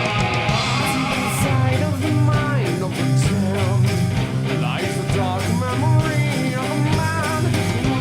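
Background rock music with electric guitar and a steady bass line.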